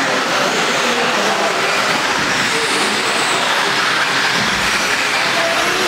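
Several electric off-road RC buggies racing on a dirt track: a dense, steady mix of motor whine and tyre noise.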